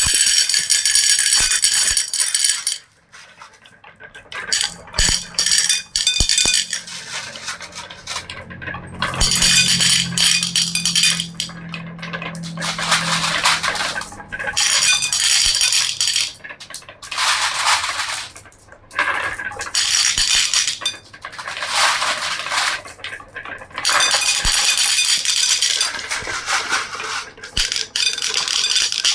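Marbles rolling and clattering down a marble run, with dense clicking and clinking in runs of a few seconds broken by brief lulls.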